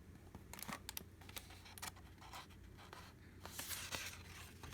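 Faint rustling, scraping and small clicks of paper being handled, typical of a picture book's pages being turned.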